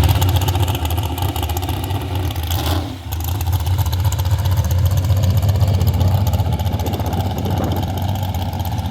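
Pulling tractor's engine running steadily at the track before a pull, with a low, constant rumble that dips briefly about three seconds in.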